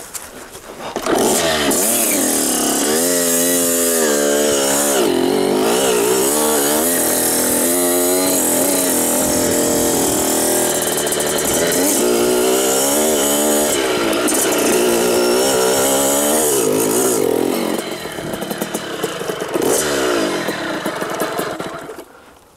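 Small two-stroke Kawasaki KX dirt bike engine being ridden close by. It comes in loud about a second in and revs up and down over and over, drops back, revs up once more, then fades out near the end.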